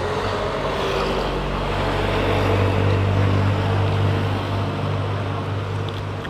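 A motor vehicle's engine running as it passes, growing louder to about three seconds in and then fading.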